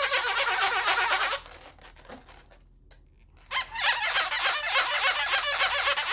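Latex balloons squeaking as they are rubbed and handled, in two long stretches with a short lull between.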